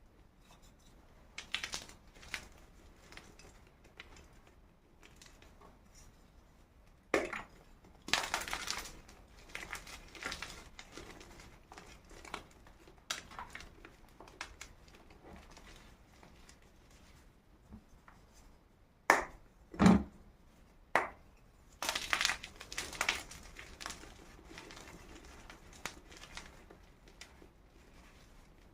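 Blocks of gym chalk crushed and crumbled close up, giving irregular crunches in clusters, with two sharp, loud crunches about two thirds of the way through.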